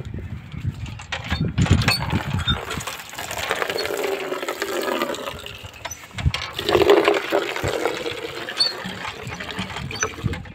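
Cast-iron village hand pump worked by its lever handle, knocking with the strokes, as water gushes out and fills a plastic bucket.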